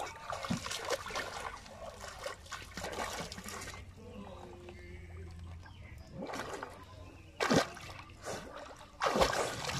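Water sloshing and trickling around a swimmer moving and ducking under the surface, with a few short louder splashes, the biggest near the end as he comes up.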